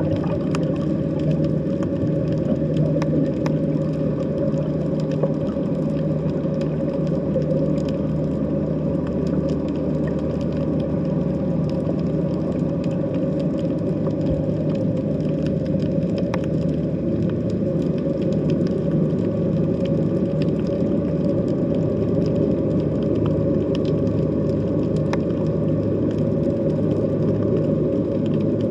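Underwater sea ambience: a steady low drone with a few faint clicks.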